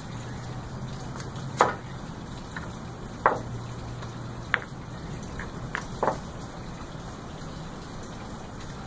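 Pool balls clacking against one another and on the table as they are taken out of a corner pocket and set down: about five sharp knocks spread through the first two-thirds, over a steady hiss.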